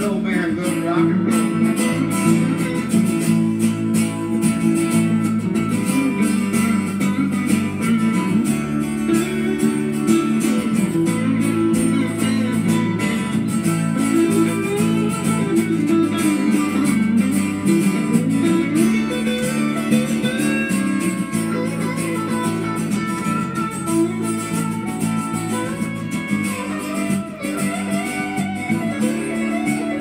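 Live band music led by guitar, with no singing: an instrumental stretch of the song, playing steadily over a constant bass line.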